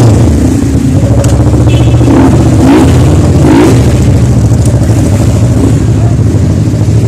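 Motorcycle engines idling, a steady low drone close by.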